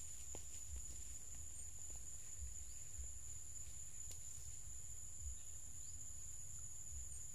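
Steady high-pitched insect chorus holding one unbroken tone, over a low rumble, with a few faint ticks.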